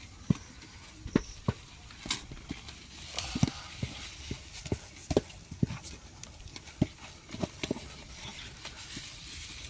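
Wooden stirring stick knocking and thudding against an aluminium pot as stiff maize-flour ugali is mashed and turned. The knocks are short and dull, and come irregularly about once or twice a second.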